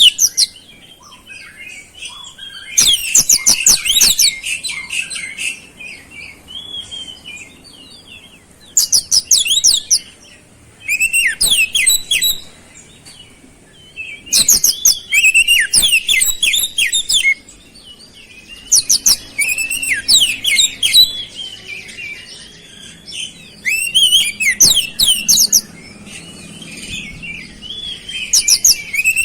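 Oriental magpie-robin (kacer) singing in loud phrases of rapid, high, sweeping notes every few seconds, with softer twittering between. Its song is filled with learned flowerpecker (cabe-cabean) calls.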